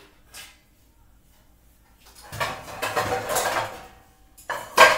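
Metal pots and pans clattering and clanking while a cooking pot is got out. There is a burst of clatter with ringing a couple of seconds in, and a sharp clank near the end.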